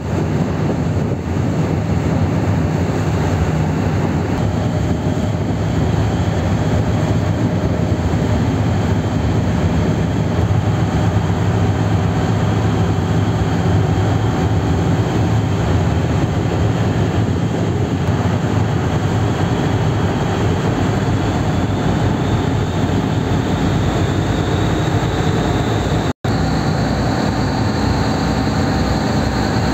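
Passenger ferry under way: the engine's steady low drone with a broad rush of water and wind over it. The sound drops out for a split second near the end.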